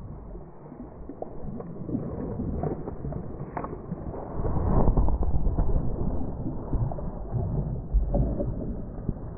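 Muffled splashing and low thumps as a hooked bass is fought and landed by hand alongside a kayak, with handling noise and rumble on the microphone. It is loudest from about four and a half to six seconds in, with another knock near eight seconds.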